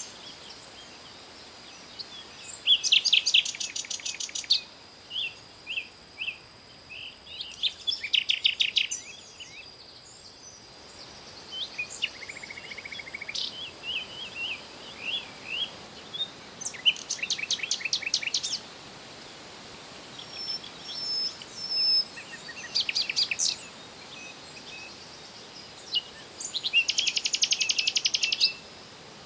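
A songbird singing: rapid trilled phrases of quick repeated high notes, each lasting one to two seconds and coming about every five seconds, with short single chirps in between.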